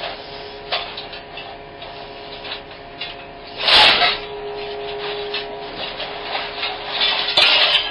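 Excavator-mounted small scrap shear working through a pile of scrap metal: metal scraping and crunching over a steady machine whine, with a loud burst of grinding about four seconds in and another near the end.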